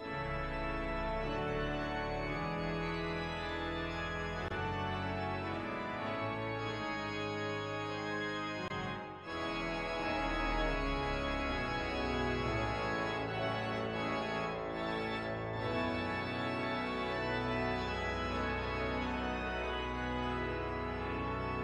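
Organ music: held notes and chords changing in steps, with a brief break about nine seconds in.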